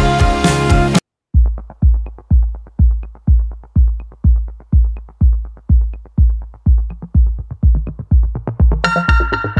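Background music: a dense track stops about a second in, and after a brief gap an electronic drum-machine beat starts, a deep kick about twice a second, with a synth coming in near the end.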